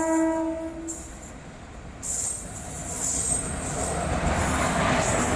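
A freight train's horn holds one steady note and stops about a second in. Then the rumble and rattle of the passing freight train on the tracks sets in and grows louder.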